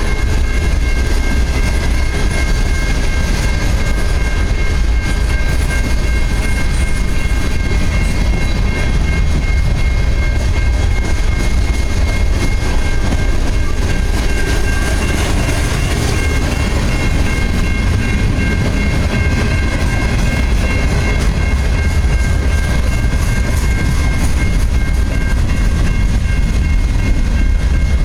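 Freight cars of a mixed freight train (boxcars, tank cars and covered hoppers) rolling past, loud and steady, with a steady high tone running above the rolling noise.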